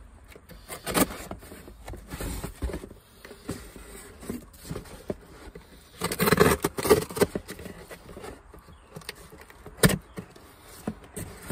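Unpacking a car part from its shipping box: scattered clicks and knocks of handling, with a louder burst of rustling packing about six seconds in and a sharp click near ten seconds.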